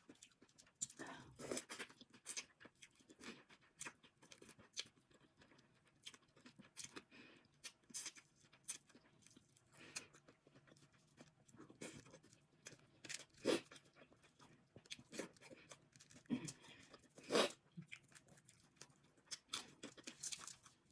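A person eating up close to the microphone: irregular chewing and smacking with many short sharp clicks and cracks, a few of them louder about two thirds of the way in and near the end.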